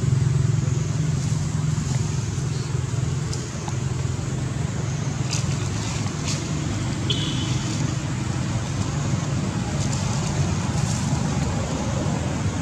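A steady low rumble with a hiss above it, and a few faint clicks about halfway through.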